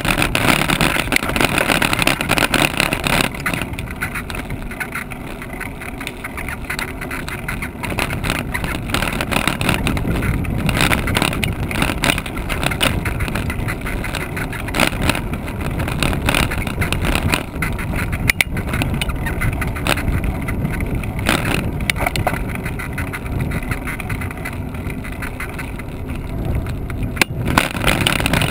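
Rumbling wind and rolling noise on a camera carried along a path, with frequent small rattles and a couple of sharper knocks from bumps. The hiss is brighter for the first few seconds and then settles.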